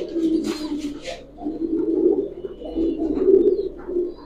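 Domestic pigeons cooing, a string of low throaty coos one after another, with a brief rustle about half a second in.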